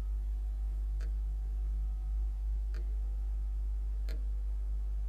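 Steady low electrical hum with three faint taps, about one, three and four seconds in: fingers tapping an interactive touchscreen display to advance its slides.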